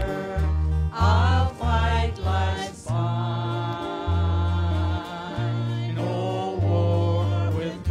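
A small worship band performing a gospel hymn: men's and women's voices singing together over acoustic guitar and a bass line of sustained low notes that change about every second.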